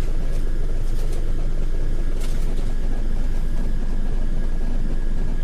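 Hino RM280 bus's rear-mounted diesel engine idling, a steady low rumble heard from inside the passenger cabin, with a faint steady high whine over it.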